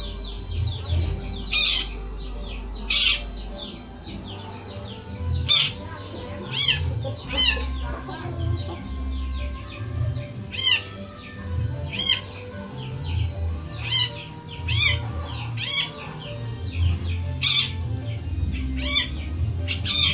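Long-tailed shrike (cendet) calling over and over, about thirteen sharp calls spaced one to two seconds apart, in the cat-like voice the title names, over a low uneven rumble.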